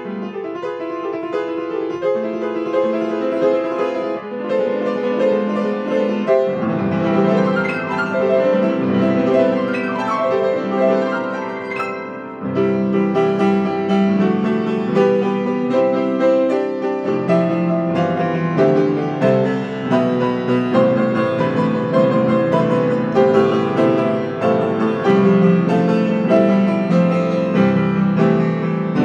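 Solo grand piano, freely improvised, playing dense continuous chords and runs. Deeper bass notes come in about six seconds in; it thins briefly near twelve seconds, then fills out again.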